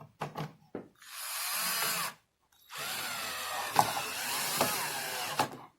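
Cordless drill-driver driving in the screws that fix a mortise lock body into the edge of a door: a short run about a second in, then a longer run of about three seconds with a couple of sharp clicks during it.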